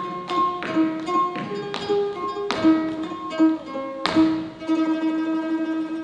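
Music on a plucked string instrument: a run of sharply plucked notes and chords, each ringing and dying away, with a longer ringing note over the last two seconds.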